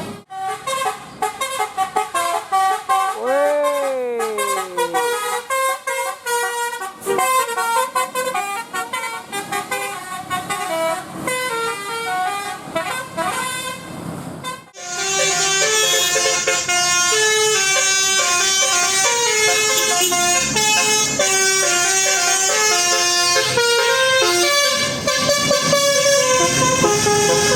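Bus telolet horns, multi-tone musical air horns, playing quick melodies of stepped, shifting notes. A few seconds in there is one falling swoop in pitch, and about halfway through the sound cuts off abruptly and a louder, denser run of horn notes follows.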